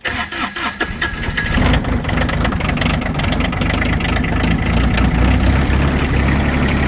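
A vehicle engine cold-started after sitting unused in freezing weather: the starter cranks for about a second and a half, then the engine catches and settles into a steady idle.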